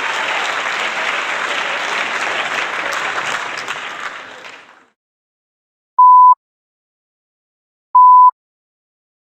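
Crowd applause that fades out over its last second or so, then two short, steady single-pitch beeps about two seconds apart.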